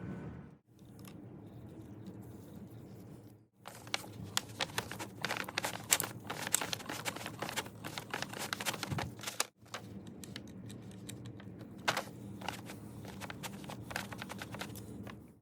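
Small metal lathe parts and hand tools being handled and fitted during reassembly: irregular clicks, taps and scrapes over a steady low hum, broken by short gaps.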